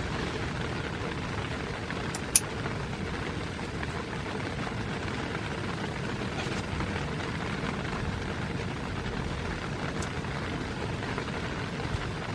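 Steady rain falling on a tent, an even hiss, with one sharp tick about two seconds in and a fainter one near the end.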